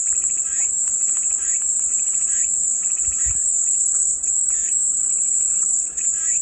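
Cicadas singing in a continuous high-pitched drone, with fainter chirping calls repeating underneath and a brief low thump about three seconds in.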